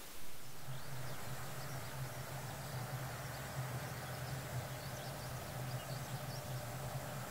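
Outdoor field ambience that comes in sharply just after the start: a steady low hum under a soft hiss, with scattered faint, short, high chirps.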